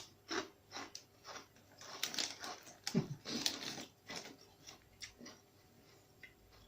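Crunchy tortilla chips being chewed with the mouth close to the microphone: a run of irregular crisp crunches that die away about five seconds in. A short low falling vocal sound comes in among them about three seconds in.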